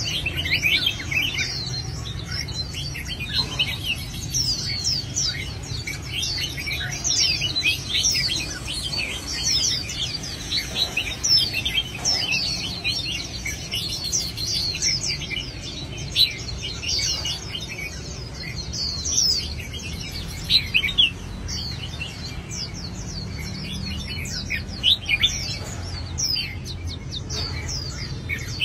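Birds singing: a dense, continuous stream of quick high chirps, each sweeping down in pitch, over a steady low hum.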